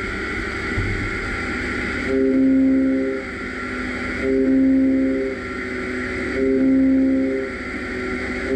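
CLX 350 CNC lathe's driven tool unit milling a hexagon axially in 1.2343 tool steel with a HAIMER Duo-Lock end mill, under a steady machine hum. From about two seconds in, a louder stretch with a steady tone comes roughly every two seconds, about a second each.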